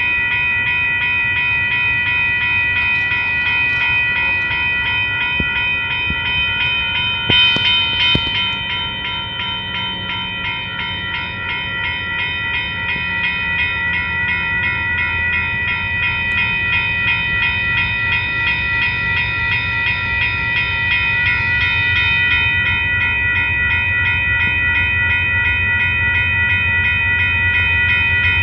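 Railroad crossing warning bell ringing rapidly and steadily, with the low rumble of an approaching train growing louder toward the end. A brief louder burst comes about seven to eight seconds in.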